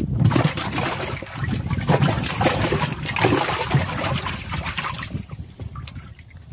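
Water splashing and sloshing in a Triton bass boat's live well as a hand reaches in to catch a bass. The splashing is busy and irregular, then dies down about five seconds in.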